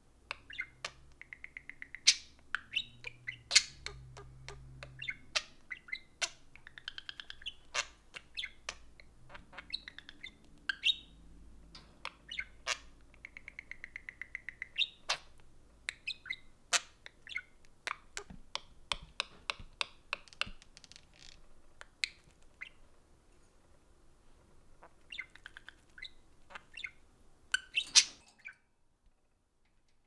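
Budgerigars chirping and chattering: many sharp chirps mixed with quick runs of rapid repeated notes. The sound stops abruptly near the end.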